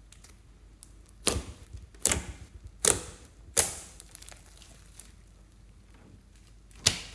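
Thick glittery slime squeezed and poked by hand, giving five sharp pops: four about a second apart in the first half, then one more near the end.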